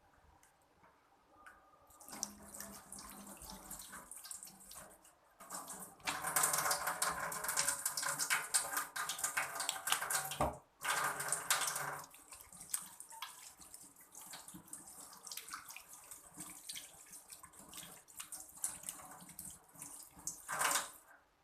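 Water running from a tap into a sink. It starts about two seconds in, runs hardest for several seconds in the middle with a brief break, then runs more softly and stops near the end.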